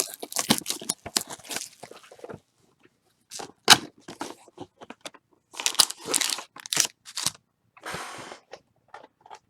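Trading cards and plastic card sleeves being handled: irregular bursts of crinkling and rustling with sharp clicks, the loudest click a little before four seconds in.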